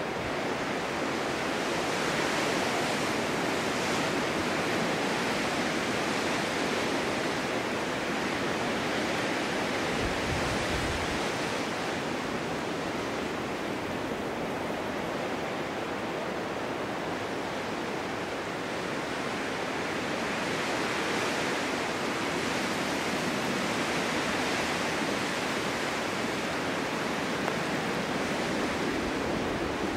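Snowstorm wind blowing through a snow-covered forest: a steady rushing that slowly swells and eases, with a brief low rumble about ten seconds in.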